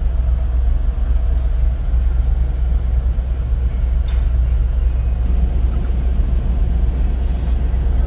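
Steady low rumble heard from inside a car standing on the deck of a car ferry, with a faint click about four seconds in.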